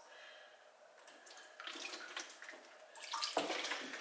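Distilled water pouring from a plastic gallon jug, a faint splashing trickle.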